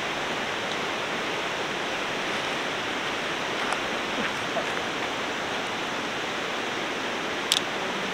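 Steady rushing of a river running close by. A single short click comes near the end.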